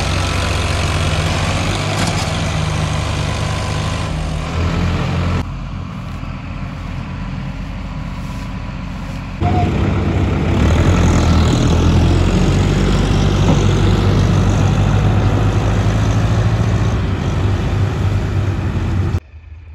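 Diesel tractor engines running hard under load as a John Deere tractor tows a Sonalika DI 750 tractor and its loaded trolley, stuck in the soft field, on a chain. The sound changes abruptly about five and nine seconds in.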